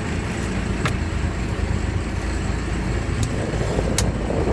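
Steady low rumble of a boat's engine running, with a few sharp clicks on top, the clearest about a second in and near the end.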